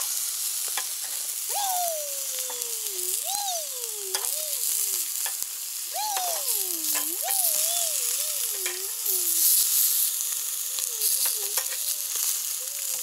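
Food frying in a pan, a steady sizzle with scattered small crackles. Over it a wavering whine slides up and down in pitch, in three spells.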